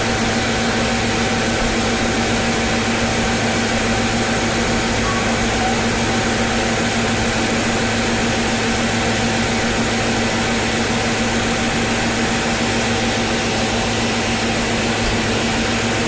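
Engine of concrete road-paving machinery running at a steady speed, a loud even drone with a constant hum.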